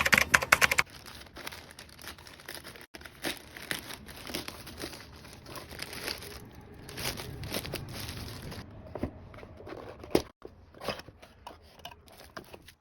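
Parcel packaging being torn open and handled, crinkling and rustling. It starts with a loud, rapidly stuttering tearing burst in the first second, then gives way to steady dense crinkling, and after about nine seconds to scattered separate crackles and clicks.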